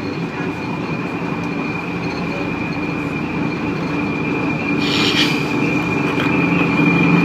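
Cabin noise inside a moving city bus: a steady engine and road drone with a high, steady whine over it, growing a little louder. A short hiss comes about five seconds in.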